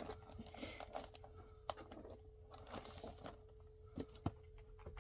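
Faint handling of comic books: a few light taps and clicks against a faint steady hum.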